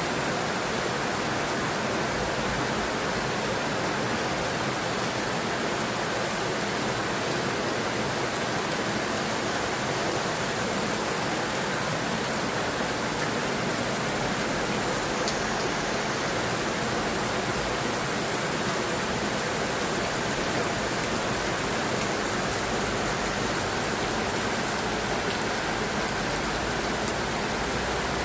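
Heavy rain falling steadily, a continuous even hiss with no breaks.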